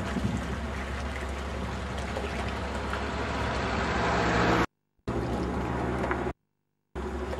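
Inland motor cargo ship passing close, its diesel engine a steady low drone under the rushing of its bow wave. The rushing grows louder up to about four and a half seconds in. The sound then cuts out completely twice for a moment.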